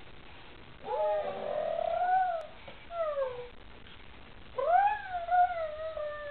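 A young child making wordless, high-pitched vocal noises with his mouth: three gliding calls, the second short and falling, the last long and slowly falling in pitch.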